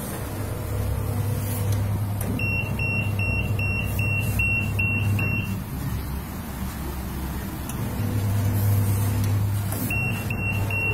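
Electronic buzzer of a needle detector machine beeping in quick even runs, about three short high-pitched beeps a second. One run of about three seconds starts some two seconds in, and another starts near the end. Under it runs a steady low hum.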